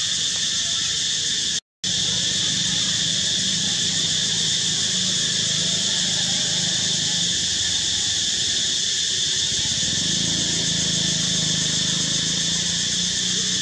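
Steady insect chorus, an unbroken high buzzing hiss. It cuts out for a split second about two seconds in.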